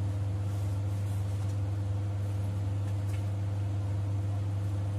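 A steady low hum, with a few faint rustles and clicks.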